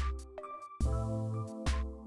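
Electronic background music with a steady beat: a deep kick drum a little more than once a second, with sharp hits in between, under held chords.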